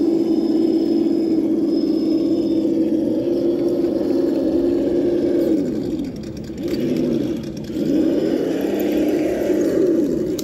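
Electric motor and geared drivetrain of a 1/10-scale RC rock crawler whining under throttle as it climbs rocks. It holds a steady whine for about five seconds and drops away around six seconds in, then rises and falls several times in short throttle blips.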